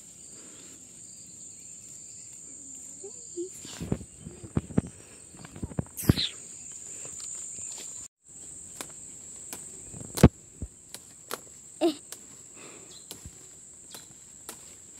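Insects giving a steady high-pitched trill, with scattered knocks and rustles from footsteps and handling in the vegetation. The loudest knock comes about ten seconds in, and all sound cuts out for a moment at about eight seconds.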